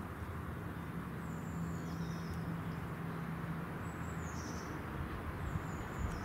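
Outdoor background: a steady low rumble of distant traffic with a low hum that fades out about four seconds in, and a few faint, high, falling bird chirps.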